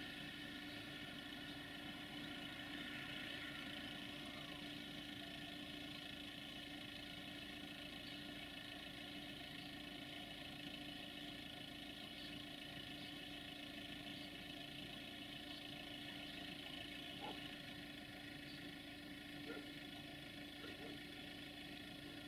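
Two CFR Class 060-DA (LDE2100) diesel-electric locomotives approaching at a distance, their Sulzer diesel engines running with a steady hum.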